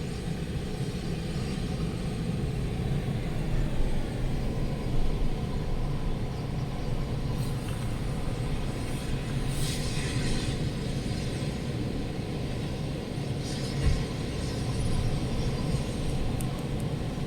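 Strong storm wind buffeting the microphone: a steady low rumble with a few brief hissing gusts.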